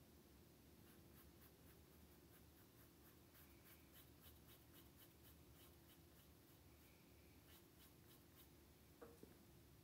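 Faint, scratchy strokes of a thin paintbrush laying acrylic paint onto canvas: many short dabbing strokes in quick succession, with a single click near the end.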